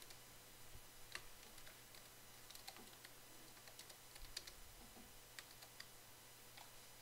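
Faint, irregular typing on a computer keyboard, with a few scattered clicks.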